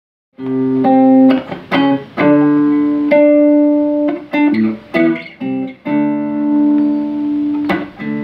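Solo guitar playing: picked chords and single notes, several left to ring for a second or more, with a long held note near the end.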